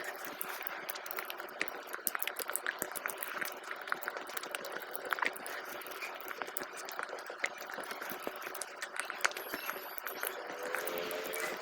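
Wet, sticky sounds of soft congee rice (phena bhat) being mixed and eaten close to the microphone: a dense, irregular run of small wet clicks and squelches.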